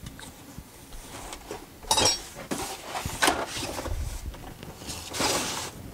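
Tools and their packaging being handled on a shelf: rustling with light clinks and knocks, in a few separate bursts, the longest near the end.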